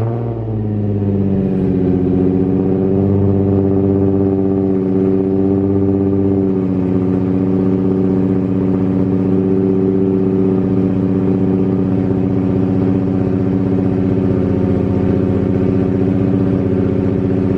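Nissan 350Z's 3.5-litre V6 idling just after a cold start, at a steady fast idle that settles slightly lower about six seconds in.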